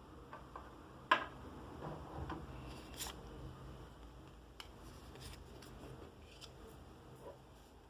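Trading cards and their packaging being handled: faint rustling with scattered small clicks and taps, the sharpest about a second in and another near three seconds.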